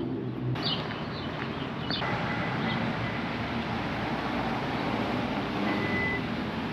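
Street traffic noise, a steady wash of passing vehicles, with a faint short high beep twice.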